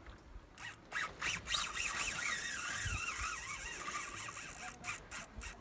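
Spinning reel's drag paying out line under a hooked piraiba catfish. It gives a high, wavering whine for a few seconds, with sharp clicks near the start and the end.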